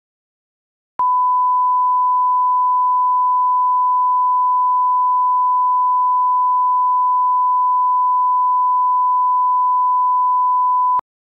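Broadcast line-up test tone that accompanies colour bars: one steady pure beep at a single pitch, starting about a second in and cutting off suddenly near the end.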